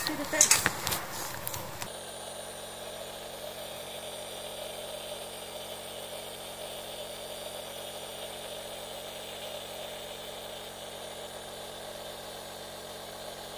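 A few loud rustles and knocks of handling at first, then from about two seconds in a nebulizer's compressor running steadily with a hum and hiss.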